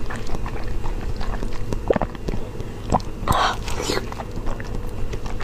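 Close-miked eating sounds: soft chewing with a few sharp mouth and spoon clicks, and a short breathy hiss a little over three seconds in, from blowing on a hot spoonful.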